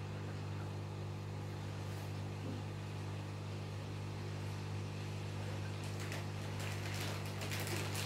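Aquarium pump running with a steady low electrical hum. Crackly bubbling of water joins in about six seconds in.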